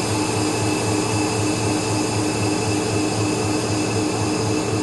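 EMD 645E3B turbocharged diesel engine of an 81 class locomotive idling, heard inside the cab: a steady low pulsing rumble with a constant whine over it.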